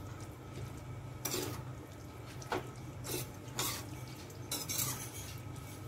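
A steel ladle stirring chickpeas in thick gravy in an iron kadhai, scraping and clinking against the pan about five times, over a steady low hum.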